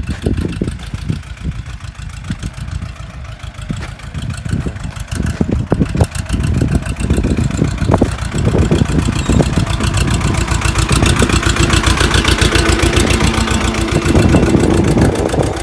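Small farm tractor's diesel engine running as it pulls a tine cultivator through the soil, with a fast regular firing beat. It gets louder from about six seconds in as the tractor comes close.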